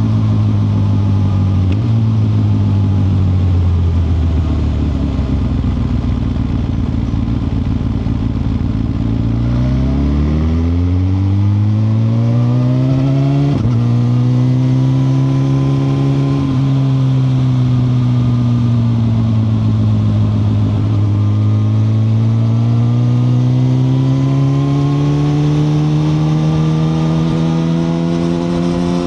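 A 2021 Suzuki GSX-R1000R's inline-four engine under way: the engine note falls as the bike slows for about the first nine seconds, then climbs sharply as it accelerates hard, with two brief breaks in the note, then settles into a gently dipping and slowly rising note.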